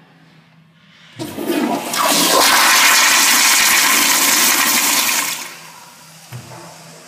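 Commercial toilet flushing on a chrome flushometer valve: a sudden surge about a second in builds to a loud, steady rush of water through the bowl lasting about three and a half seconds, then falls away to a quieter wash as the valve shuts.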